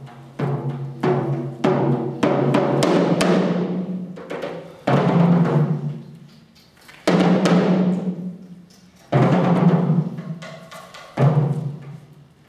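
Percussive music: a quickening run of drum strikes over the first few seconds, then four heavy, deep drum hits about two seconds apart, each ringing out and fading.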